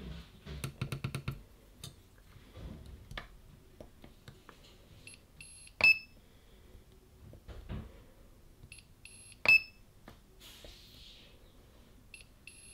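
Portable battery spot welder with its probes pressed onto the thick nickel strip of an 18650 cell pack: twice, a few seconds apart, a short run of high beeps ending in a sharp snap as the weld pulse fires, with a quick run of light clicks about a second in. The welds are not getting through the thick nickel plate.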